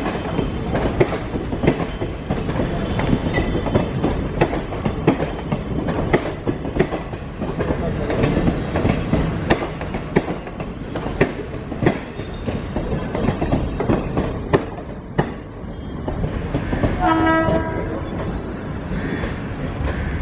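Express train coaches rolling past at departure speed, their wheels clattering over rail joints with a steady rumble and many sharp clicks. About 17 seconds in, a train horn sounds once for about a second.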